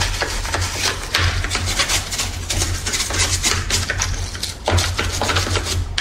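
Small stiff brush scrubbing the clear plastic housing of a Shark Rocket cordless vacuum coated in foaming glass cleaner, in quick, irregular scratchy strokes.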